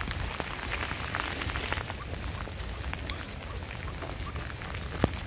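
Light monsoon rain falling: a steady hiss with scattered, irregular drop ticks and one sharper click near the end.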